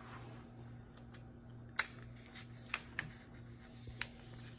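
A sheet of paper being folded in half and creased by hand, with a few short sharp crackles and taps, over a low steady hum.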